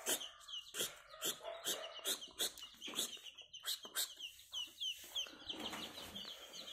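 Chicks a week or two old peeping, many short high falling peeps one after another. Through the first five seconds a run of sharp taps, about two or three a second, sounds under the peeps.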